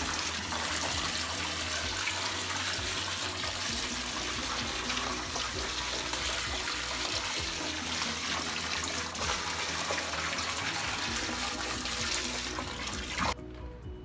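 Water from a garden hose pouring into a deep bowl of standing water, a steady splashing rush, with background music under it. The water sound cuts off suddenly about a second before the end, leaving only the music.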